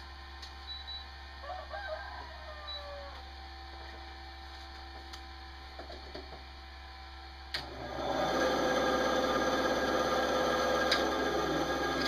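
Power cable plugs being connected: a sharp click about seven and a half seconds in, after which a louder steady hum and hiss sets in. A rooster crows faintly about a second and a half in.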